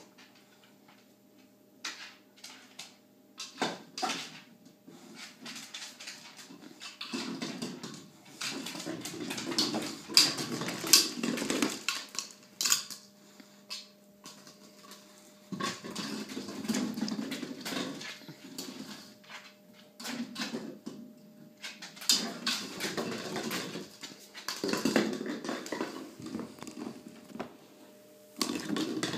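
A dog pawing and scrabbling, with sharp clicks and taps, in several irregular bursts separated by quieter stretches.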